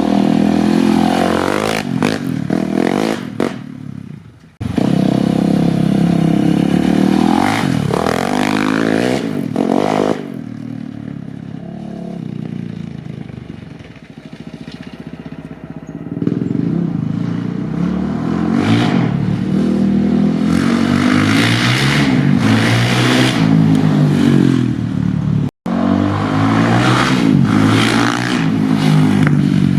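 Polaris Outlaw 525's KTM-built 525cc single-cylinder four-stroke engine, breathing through a Big Gun EVO R slip-on exhaust, revving repeatedly with its pitch rising and falling. It drops quieter for several seconds in the middle and cuts off abruptly twice, about four seconds in and near the end.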